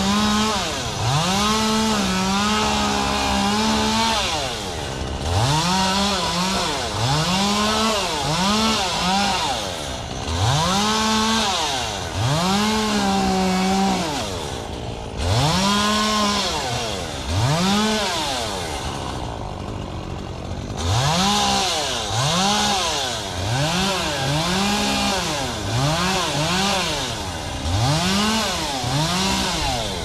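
Chainsaw revving up and dropping back again and again, in short bursts every second or two, some held briefly at full speed, while pruning the fronds of a Canary Island date palm.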